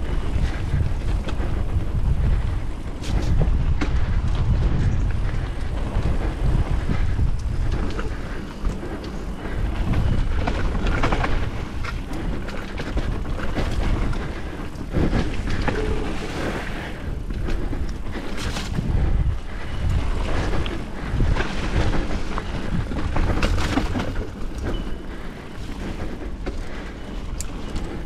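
Mountain bike ridden fast on a dirt flow trail: heavy wind rumble on the microphone, with tyre noise and the bike's rattles and knocks over bumps.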